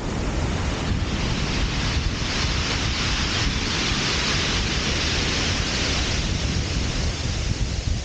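Wind buffeting the microphone, with surf washing on a shingle beach. A broad hiss swells up about two seconds in and eases off toward the end.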